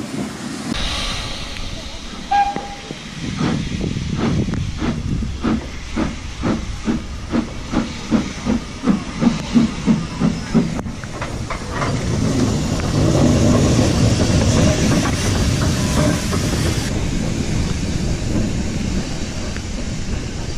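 Steam locomotive chuffing as it works a train, its exhaust beats coming about two to three a second. About twelve seconds in, the beats give way to a steady, louder rushing hiss as the train runs along.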